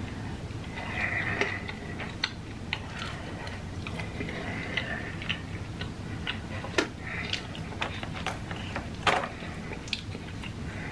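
Close-miked chewing of crunchy tortilla-chip nachos: irregular crunches and wet mouth clicks.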